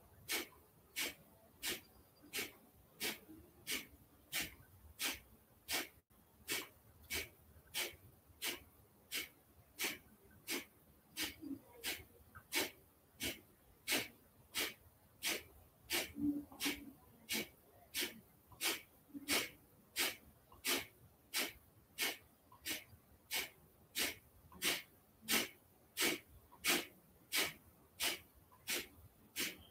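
Kapalabhati breathing: short, forceful exhalations puffed out through the nose, evenly paced at about one a second.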